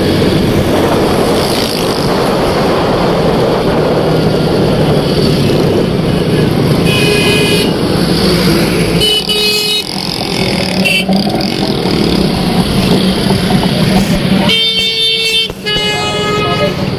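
Motorcycle engine running with steady road and wind noise while riding in street traffic, with vehicle horns honking several times: short toots about halfway through and a longer blast about two seconds long near the end.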